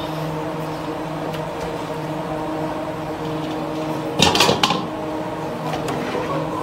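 A slotted metal ladle clatters against a stainless-steel bowl as braised meat and bones are tipped in, about four seconds in, over a steady low hum.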